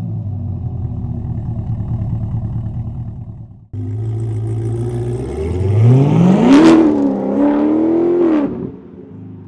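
C8 Corvette's V8 with an aftermarket header-back exhaust and high-flow intake, idling. After a cut, it idles again, then revs up, holds the revs briefly and drops back toward idle near the end.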